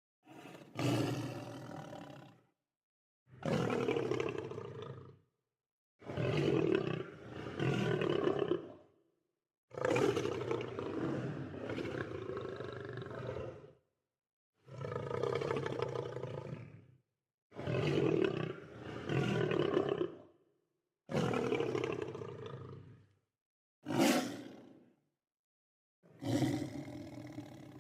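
Lion roars, about nine in a row, each lasting one to four seconds, starting suddenly and fading out, with dead silence between them.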